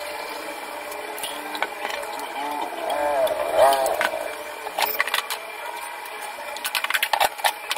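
Kitchen-counter handling of plastic cups and a small scoop in a powder tub: a steady low background, a brief voice-like pitched sound in the middle, then a run of sharp clicks and knocks in the second half.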